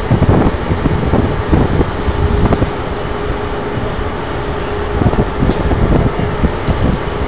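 Wind buffeting the microphone over a steady mechanical hum, with a constant tone that becomes clear about two seconds in.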